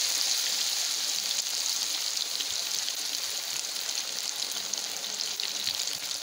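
Marinated fish pieces deep-frying in hot oil just after being put in, a steady vigorous sizzle with fine crackling that eases slowly.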